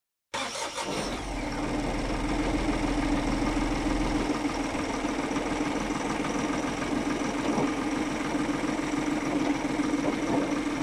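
Audi A1 1.4 TDI diesel engine idling steadily, with a steady hum; the deep low rumble eases off about four seconds in.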